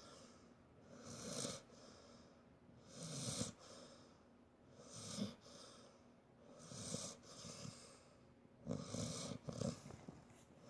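Snoring from an old sleeper: slow, rasping snoring breaths about every two seconds, the last two coming close together near the end.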